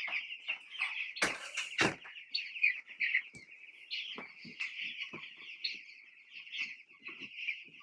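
A large flock of young chicks peeping constantly, many high calls overlapping into a steady chorus. Two sharp knocks about a second in and a few faint clicks and rustles sound over it.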